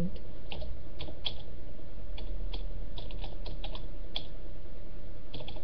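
Irregular clicks of typing on a computer keyboard, over a steady low hum.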